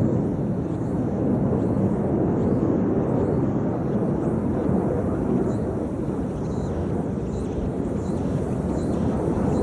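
Jet noise from display aircraft flying over during an air show, a steady low rushing sound with no clear pitch.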